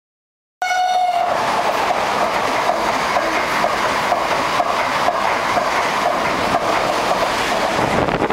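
Renfe Class 130 'Patito' train running along the platform: a steady rolling rumble of wheels on rails with a light clickety-clack. The sound cuts in suddenly about half a second in with a brief high tone.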